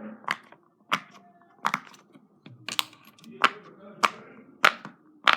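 Rainbow square silicone Pop-It fidget having its bubbles pressed, popping with sharp single clicks about once every half second to a second.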